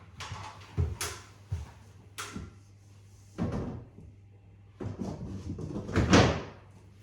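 Several knocks and scraping, rustling movements, the loudest about six seconds in, from doors or panels being opened and closed.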